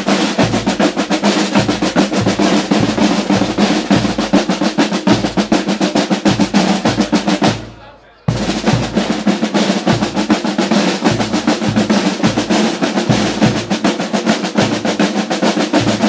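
Marching band drum line playing a fast snare-drum cadence over a regular bass-drum beat. It stops for about half a second around the middle, then starts again.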